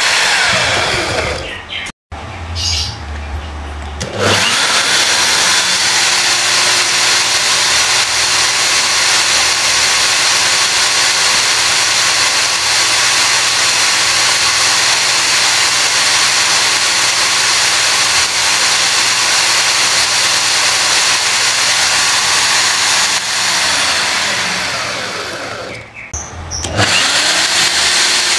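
Corded electric drill, rated 500 W and 2000 RPM, spinning a cardboard-housed RC truck rear axle with a locked differential through its driveshaft, with a steady loud whir of motor and gears. The whir spins down just after the start and starts again about four seconds in. Near the end it winds down again and then restarts.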